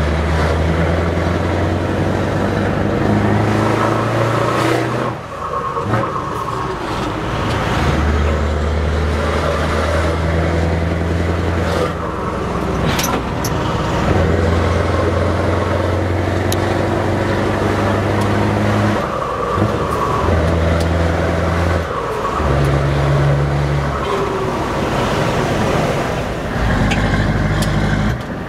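Scania 164L 580's V8 diesel with open exhaust pipes, heard from the cab, pulling through the gears. The low engine note breaks off briefly several times and comes back at a new pitch at each change.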